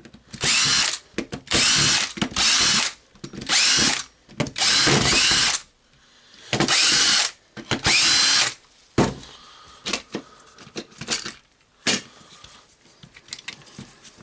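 Cordless drill/driver run in seven short bursts, each spinning up with a rising whine, as screws are driven out of a drill's housing; after about nine seconds, scattered light clicks and knocks of parts being handled.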